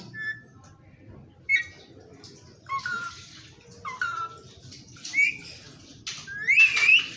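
Pet Indian ringneck parrot giving about five short, high calls with quick pitch glides, spread over several seconds; the last, near the end, is the loudest and longest.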